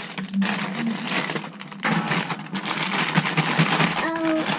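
Thin clear plastic toy bag crinkling and rustling as it is torn open and pulled off a squishy toy, with a short pitched vocal sound near the end.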